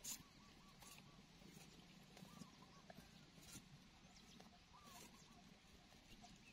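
Near silence: faint outdoor ambience with soft, high chirping calls in short runs and a few faint clicks.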